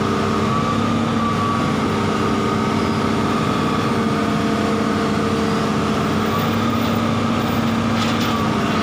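Engine running steadily at an even speed, a constant hum without revving.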